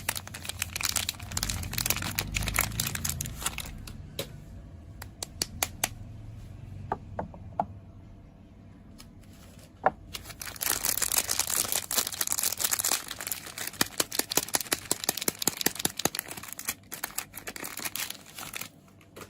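Soap packaging being unwrapped by hand: the wrapper crinkles and tears in dense crackling handling noise, which thins to a few scattered small clicks for several seconds in the middle before the crinkling picks up again.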